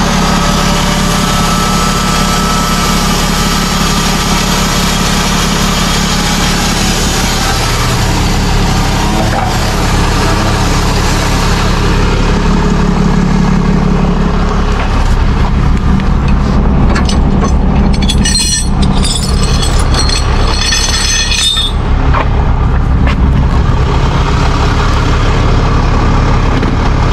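Ram tow truck's engine running steadily close by. About two-thirds of the way through, a few seconds of rattling clatter come in over it.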